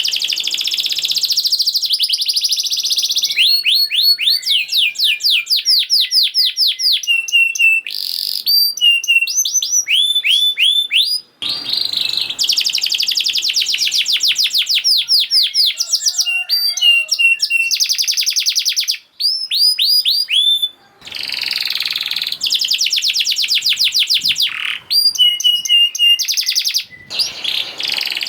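Domestic canary singing a fast, tightly packed song: long phrases of rapidly repeated notes and trills, broken now and then by short pauses.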